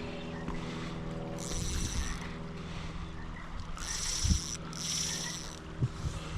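A steady low motor hum with several even tones, with three short high-pitched hissing bursts about a second and a half, four and five seconds in.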